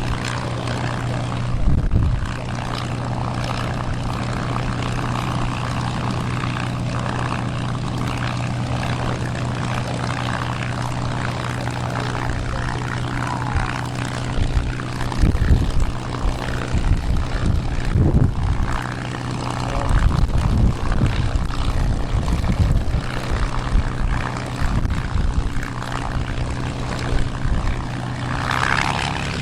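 Piston-engined propeller aircraft droning at a steady pitch, with low gusts of wind buffeting the microphone through the middle stretch.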